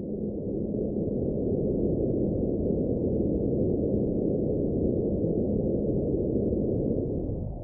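Muffled, low-pass-filtered synth noise swelling up as the intro of a synthwave track, with a steady low tone that fades out within the first second. The noise holds steady, then stops at the very end.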